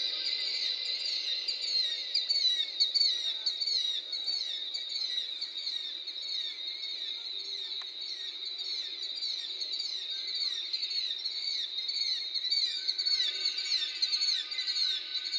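Manipulated field recording: a dense layer of quick, falling chirps, many per second, over steady held tones, with the low end cut away. A second held tone comes in near the end.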